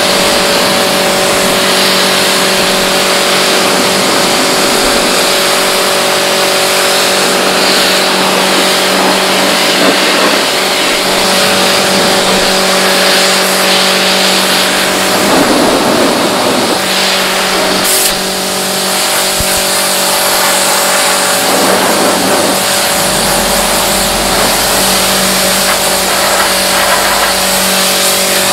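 Pressure washer running: a steady motor hum under the hiss of the water jet blasting caked mud off a car's body panels. The hiss dips briefly about eighteen seconds in.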